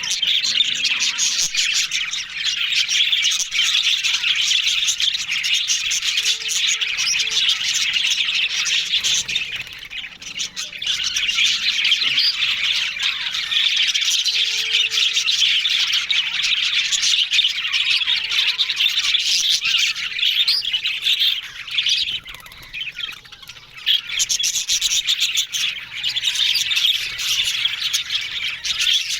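A flock of budgerigars chattering, many birds warbling, chirping and squawking at once, with two short lulls.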